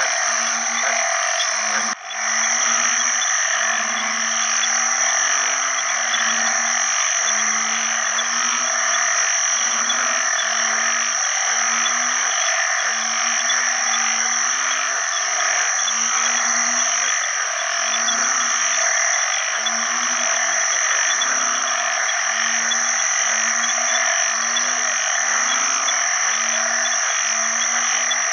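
Banded bullfrogs (Asian painted frogs, Kaloula pulchra) giving low, short calls over and over, about one a second, with several callers overlapping. These are males calling for mates. Behind them runs a dense, steady chorus of other frogs.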